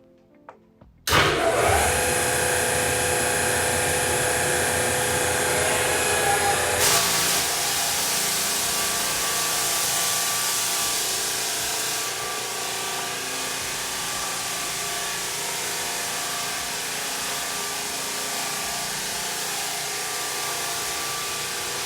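Drum floor sander starts up suddenly and runs with a loud, steady motor sound. About seven seconds in the sound changes to a harsher hiss as the 38-grit drum sands the red oak floor, and it stays steady from then on.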